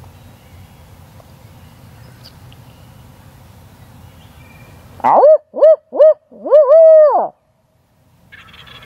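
A loud series of owl hoots about five seconds in: three short hoots, each rising and falling in pitch, then a longer drawn-out hoot.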